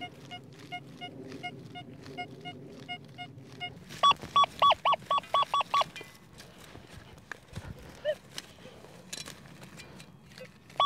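XP Deus metal detector giving repeated short beeps as its coil sweeps over a target: faint blips at first, then about four seconds in a loud, quick run of about eight high beeps. This is the strong signal from a buried piece of coke, a low-conductive target. Scattered soft thuds of digging follow.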